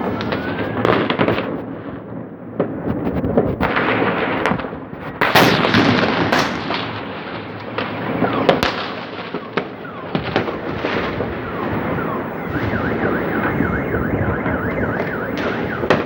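Many fireworks going off at once: a steady crackle punctuated by loud bangs. Near the end a car alarm joins in with a rapid up-and-down wailing.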